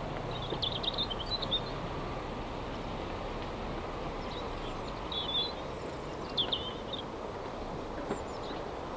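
Steady rumble of distant road traffic, with short high bird chirps a few times: about a second in, then around five and six and a half seconds.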